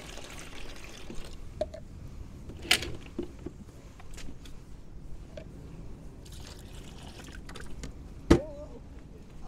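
Water being poured from a plastic pitcher into a plastic cooler, splashing and trickling, with a few light clicks of plastic. A single sharp knock near the end is the loudest sound.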